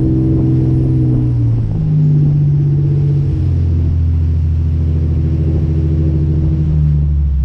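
Motorboat engines running at cruising speed: a loud, steady hum whose pitch shifts about two seconds in, over the rush of water from the wake.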